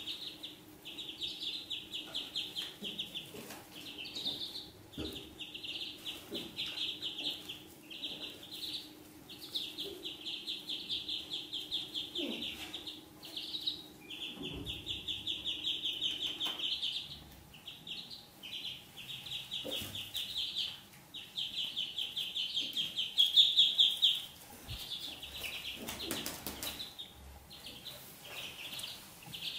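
A flock of ducklings peeping: rapid high cheeps in long overlapping runs with short breaks, loudest about three-quarters of the way through.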